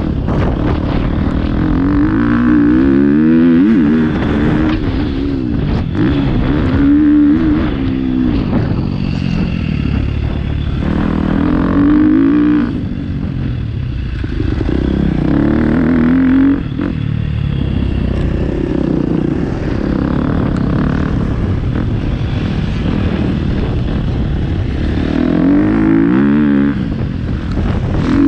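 Motocross bike engine revving up and easing off again and again as it is ridden round a dirt track, its pitch climbing and dropping every few seconds.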